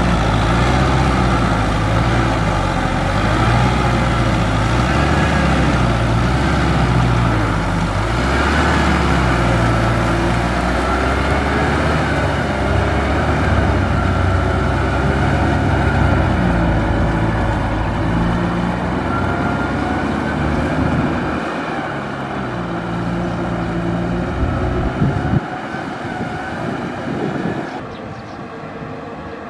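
Kubota M6040SU tractor's four-cylinder diesel engine working under load, pulling a cultivator through deep mud and water. The engine note rises and falls with the load, and the sound gets quieter over the last several seconds.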